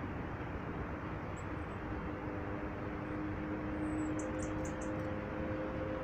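Steady outdoor rumble, joined from about two seconds in by the steady drone of a distant engine. About four seconds in, a quick run of four or five very high, short bird calls.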